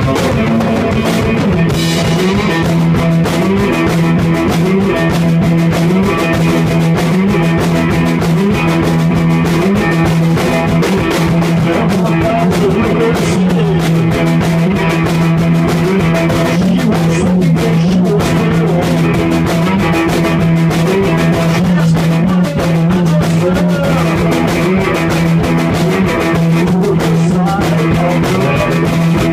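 Electric cigar box guitar played in a driving rock rhythm over a steady low drone note, with a steady percussive beat.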